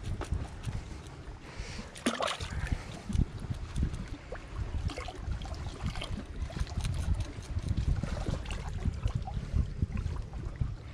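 A metal spoon scraping scales off a freshly caught fish in short, scratchy strokes, with a louder stretch about two seconds in. Wind buffets the microphone and water laps close by.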